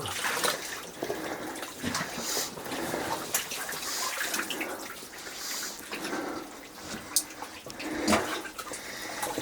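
A person wading through thick, knee-deep mud and water, with irregular sloshing splashes as the legs push through the goo.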